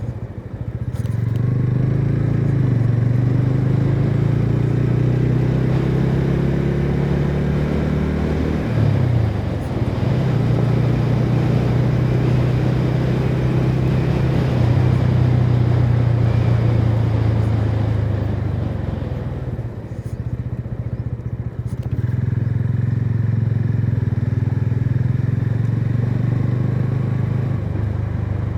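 TVS Ronin motorcycle's single-cylinder engine on its stock exhaust, under way. The revs climb over the first several seconds, fall at an upshift about nine seconds in, and the engine then runs steadily. It eases off briefly about twenty seconds in, then picks up and runs steadily again.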